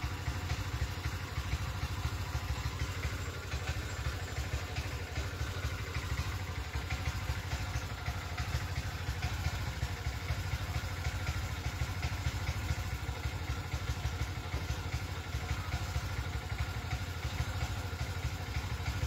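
A small engine running steadily at an even idle-like speed, with a low, fast pulsing throb.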